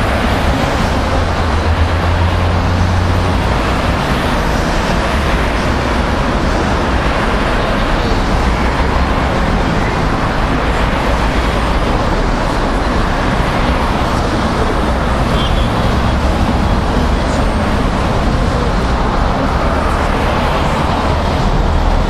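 Steady city road traffic: cars and taxis driving past close by at a busy intersection, a continuous rumble with no single event standing out.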